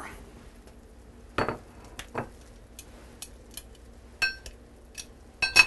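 Kitchen clatter of a glass dish and utensils being handled and set down: a handful of separate knocks and clinks, two of them ringing, the loudest pair at the very end.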